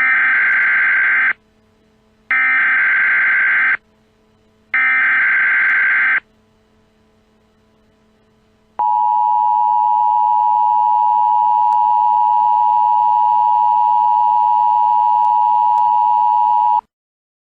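Emergency Alert System SAME header: three short bursts of buzzy digital data tones about a second apart, then the steady two-tone EAS attention signal, held for about eight seconds before it cuts off.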